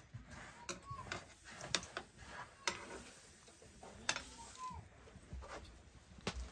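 Metal ladle knocking and scraping against a wok as thin noodles are stirred: a handful of sharp clinks, irregularly spaced about a second or more apart.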